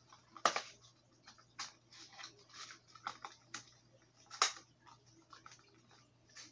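Plastic crankbait packaging handled and opened by hand: irregular clicks and crackles, with the sharpest snaps about half a second in and about four and a half seconds in.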